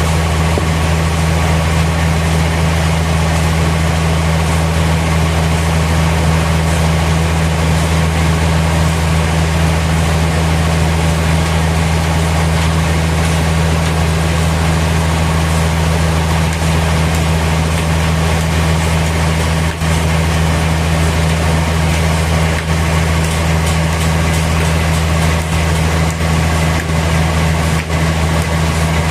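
Sawmill machinery running steadily: a loud, unchanging low engine-like hum with no sign of a cut starting or stopping.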